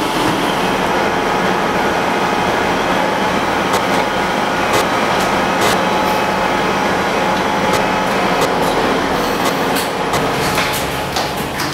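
Passenger train running at a station platform: a steady, loud noise from the train with a few sharp clicks scattered through it.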